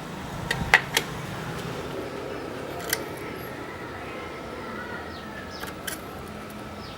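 A few sharp clicks and taps of small utensils against a miniature cooking pot, three in quick succession about a second in, then single ones later, over a steady low hiss.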